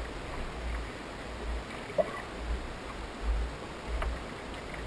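Wind buffeting the microphone in repeated low rumbling gusts over a faint steady hiss, with a few small clicks and knocks, one sharper tick about two seconds in.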